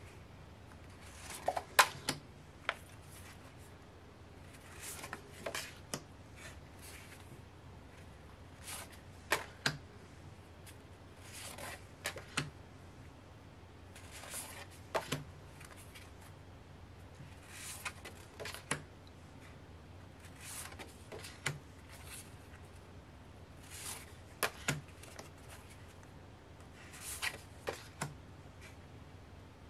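Stiff paper postcards being leafed through by hand, one card at a time: a soft paper slide and a light tap every couple of seconds.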